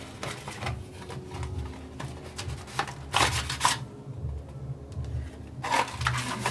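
Paper and cardboard packaging rustling and sliding as it is handled, in several short bursts. The loudest comes about three seconds in, followed by a brief lull and another rustle near the end.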